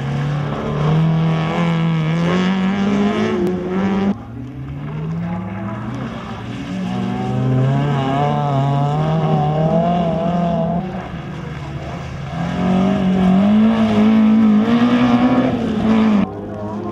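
Rally car engines revving hard under acceleration, one car after another. The note climbs and drops back at each gear change, and the sound breaks off suddenly about 4, 11 and 16 seconds in as one car gives way to the next.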